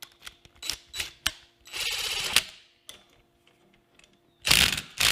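Steel parts clinking and scraping on a steel welding table as a drill guide block is set in place and clamped: a run of sharp clicks and knocks, a short scrape about two seconds in, and a louder scraping rasp near the end.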